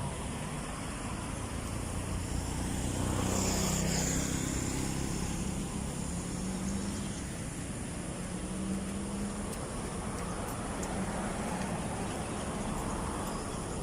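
A motor vehicle's engine running past, loudest about four seconds in, over a steady background hum.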